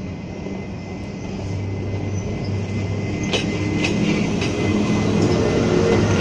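Taiwan Railways E234 electric locomotive approaching at speed, its steady electrical hum growing louder. From about three seconds in, its wheels click over the rail joints.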